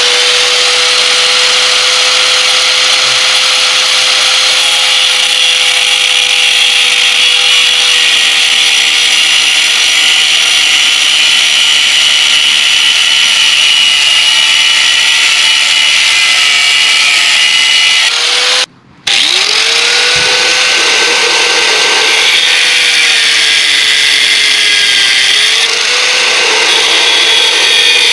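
A high-speed handheld power cutting tool whining as it cuts through a metal motorcycle crash cage bar. It spins up at the start, stops briefly about two-thirds of the way in and spins up again, and its pitch sags under load near the end.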